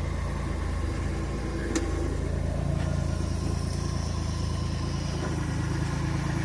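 Polaris Ranger 1500 UTV's three-cylinder engine idling steadily, with one light click a couple of seconds in.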